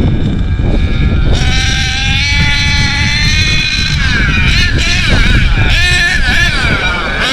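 HPI Savage X4.6 nitro RC monster truck's small two-stroke nitro engine running hard, held at a steady high whine for a couple of seconds, then rising and falling quickly with the throttle over a dense low rumble.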